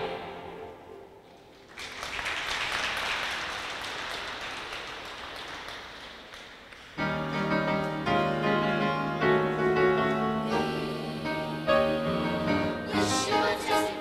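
The last chord of a song dies away, then an audience applauds for about five seconds, the clapping slowly fading. About seven seconds in, the choir and upright piano start the next piece together, with long held notes.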